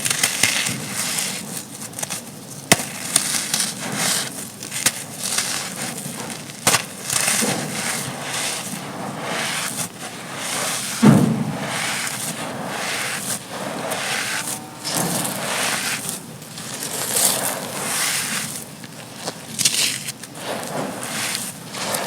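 Dry, gritty black sand-cement chunks crumbling and crunching, with a steady crackle and scattered sharp snaps, and one heavier crunching thud about eleven seconds in.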